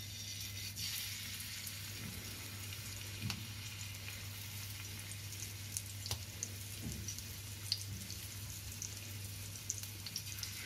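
Marinated trevally steak sizzling in oil on a hot iron dosa tawa: a steady hiss with scattered crackles and pops.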